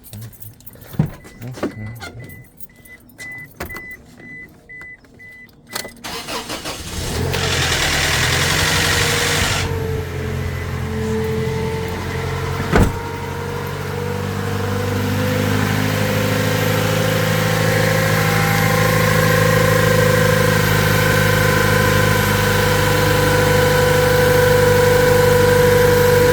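A 2007 Toyota Tacoma being started: clicks and an evenly pulsing beep, then about seven seconds in the engine starts with a loud noisy burst that lasts a couple of seconds before it settles into a steady idle, with a whine that grows louder toward the end. This is the unexplained start-up noise that a local mechanic could not identify.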